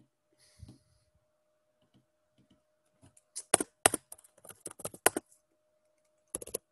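Typing on a computer keyboard: a quick run of keystrokes starting about three seconds in, and another burst of keys near the end.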